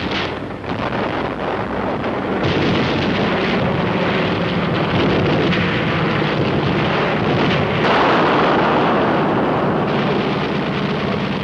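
Battle sound of explosions: a dense, continuous rumble that swells about two and a half seconds in and is loudest around eight seconds.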